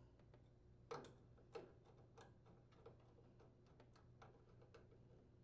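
Faint, irregular clicks of a Phillips screwdriver turning a screw and washer into a microwave's sheet-metal diode support bracket, the loudest about a second in.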